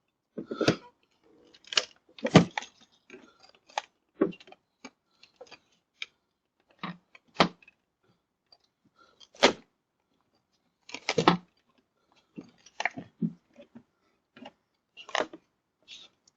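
A string of irregular clicks, knocks and light thuds, about a dozen sharp handling noises spread unevenly, with near silence between them.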